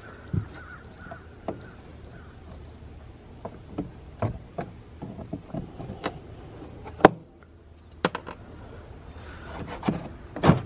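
Scattered light clicks and taps of hands working the plastic push-pin fasteners on a Kawasaki KRX 1000's intake cover, with one sharper click about seven seconds in.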